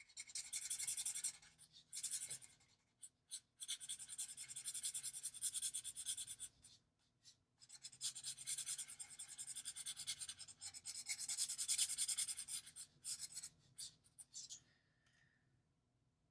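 Ohuhu alcohol marker nib stroking across paper in quick, scratchy back-and-forth strokes, in runs of a few seconds with short pauses, while colouring in an area; the strokes stop about two seconds before the end.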